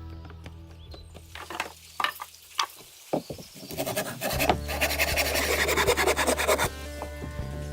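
Background music with held tones, and in the middle a loud rough crackling noise lasting about two and a half seconds that stops abruptly, with a few sharp clicks before it.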